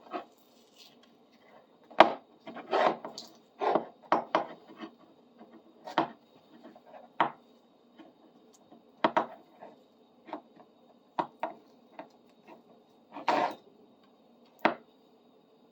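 Irregular short scrapes, rubs and knocks on the wooden handle of an old bar clamp as layers of masking tape are stripped off it, about a dozen separate sounds with pauses between them.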